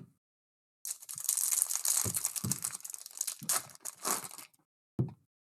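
A foil trading-card pack wrapper crinkling and being torn open for about four seconds, with a short knock near the end.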